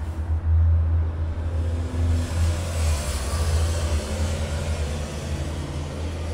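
Disney Skyliner gondola cabin riding along its cable: a steady low rumble, with a swell of hiss in the middle.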